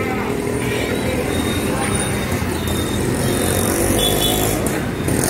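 Outdoor street-market ambience: steady traffic noise with indistinct voices in the background.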